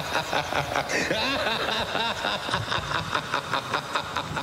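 A cackling laugh on the show's soundtrack, in quick repeated pulses about four to five a second, its pitch swooping up and down.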